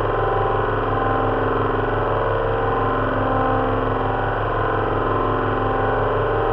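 Simulated drone of an Avro Lancaster's four Rolls-Royce Merlin V12 engines running steadily, mixed with fan-heater noise standing in for the propellers. Each engine is set to a slightly different speed, and the low end pulses evenly.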